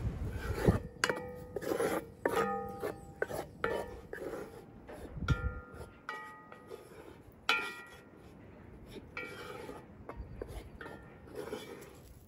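A metal bowl and cooking pot clinking and ringing as wheat flour is knocked out of the bowl and stirred with a spatula. There are a dozen or so sharp clinks, each with a short metallic ring, with scraping in between.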